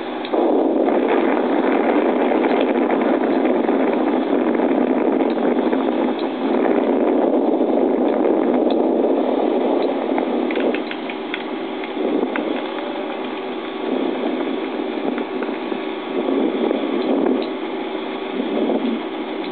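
Wind rushing over the camcorder microphone while parasailing high above open water, a steady noise that eases off about eleven seconds in and swells again in gusts. It is heard as played back through a television speaker, thin and without deep bass.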